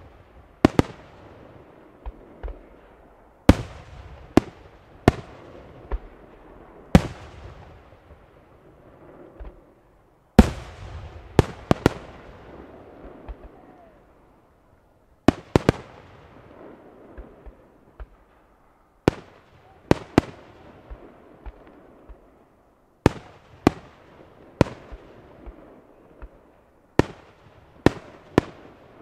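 Aerial firework shells bursting: sharp bangs, often two or three in quick succession, coming every few seconds, each followed by a fading echo.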